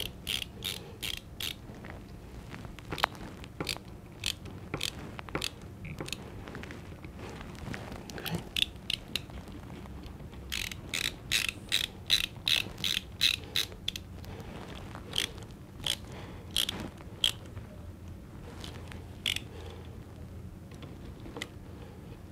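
Screwdriver tightening the side plate screws of a Smith & Wesson Model 29 revolver: runs of light metallic clicks, about three a second, in several bursts with pauses.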